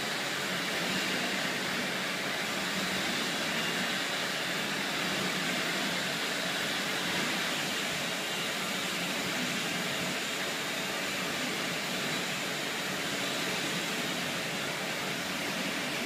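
Sammic SL1200BP hood-type commercial dishwasher running its wash cycle: a steady rush of water spraying inside the closed stainless-steel hood.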